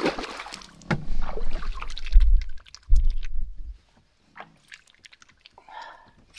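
Water splashing against the side of an aluminum fishing boat as a northern pike is let go over the gunwale and thrashes away, with heavy low thumps through the first four seconds. After that only a few light clicks.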